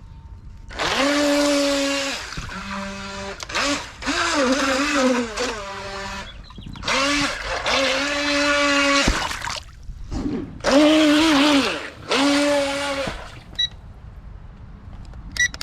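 Zyerch RC boat's electric motor whining in about five throttle bursts of a second or two each. Each burst rises in pitch as the motor spins up and drops away as the throttle is released.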